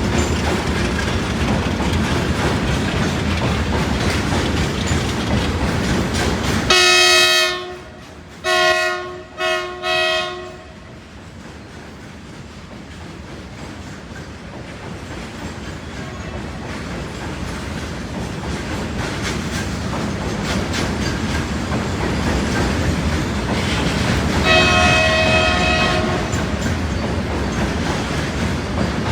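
Indian Railways train running past, its wheels clattering over the rail joints. About seven seconds in a locomotive horn sounds three blasts, the first longest. Then a train's rumble grows steadily louder as it approaches, with another horn blast a few seconds before the end.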